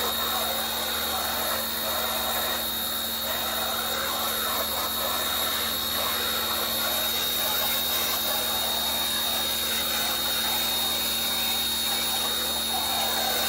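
Pressure washer running steadily and spraying water, a constant mechanical drone with a high steady whine and a hiss of spray.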